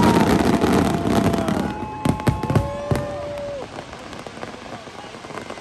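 Fireworks display ending: a dense crackling barrage of shells fades over the first couple of seconds, then a few last sharp bangs come between two and three seconds in. Several long steady tones sound over it and then stop.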